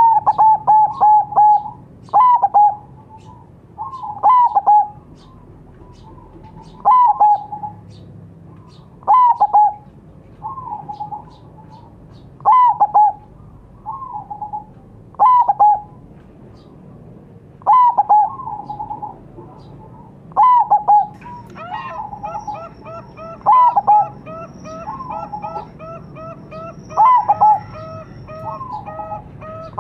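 Zebra dove (perkutut) of the local Majapahit strain cooing: short phrases of quick rolling coo notes, repeated every two to three seconds, some louder than others. From about two-thirds of the way in, another bird joins with fast, evenly repeated notes and faint high chirps.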